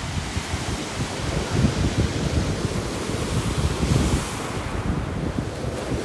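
Storm waves breaking and washing on the shore, with strong wind buffeting the microphone; a wave's hissing wash swells about four seconds in.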